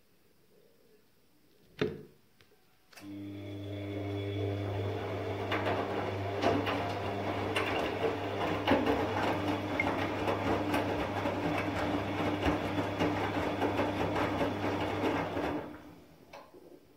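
Bosch front-loading washing machine in its rinse phase. A single click is followed about three seconds in by a steady low hum with rattling and splashing water, which stops near the end.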